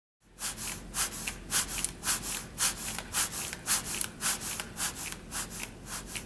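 Chest compressions on a CPR training manikin with defibrillator pads and a CPR feedback sensor on its chest: a rubbing, crinkling stroke with each push, about two a second. The compressions are too shallow by the rescuer's own account.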